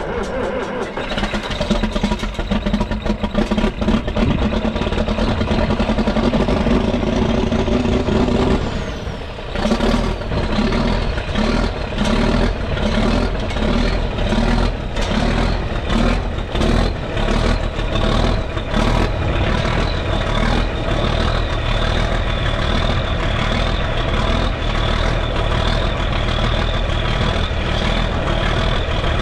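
John Deere 4520 six-cylinder diesel cold start: the starter cranks with a rising whine for about nine seconds, then the engine catches and runs with uneven, pulsing firing that smooths into a steady idle.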